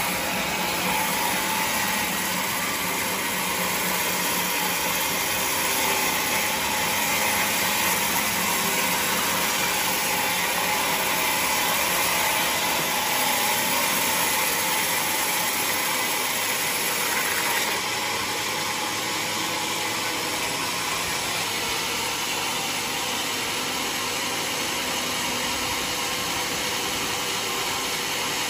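Sawmill saw running steadily. The sound changes and gets slightly quieter about two-thirds of the way through.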